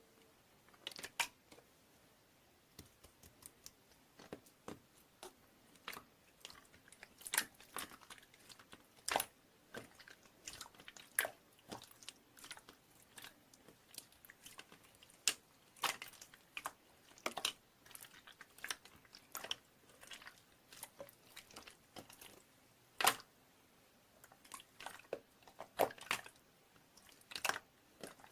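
Close-up chewing and biting sounds: irregular wet clicks and crunches from a mouth, several every second.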